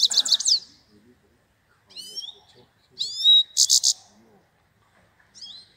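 Goldfinch singing in short, high phrases with pauses between them: a fast trill that ends just after the start, a brief phrase about two seconds in, a rising note run into a fast trill of rapidly repeated notes around three seconds, and a few short notes near the end.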